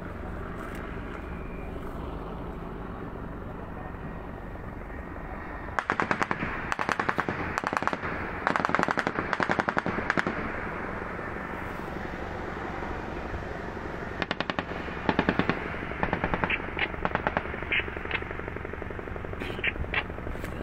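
Machine-gun fire from a helicopter-mounted gun, heard from far off. Long rapid bursts start about six seconds in, another burst comes around fourteen seconds, and separate sharp cracks follow near the end.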